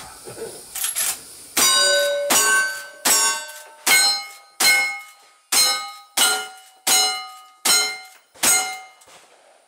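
Handgun shots fired in quick succession, about ten of them roughly 0.7 s apart, each followed by the ringing clang of a steel plate target being hit.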